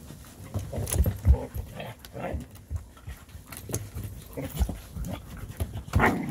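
Dogs panting, with irregular low thumps and knocks.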